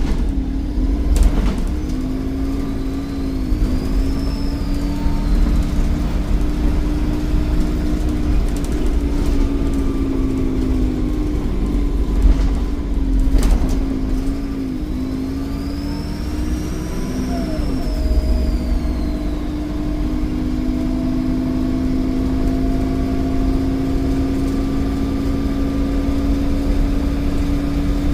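Volvo D7E 7.1-litre diesel engine of a Wrightbus Eclipse bus running under way, with the turbocharger whistle rising and then falling away twice, about three seconds in and again past the middle. Two sharp knocks come through as well.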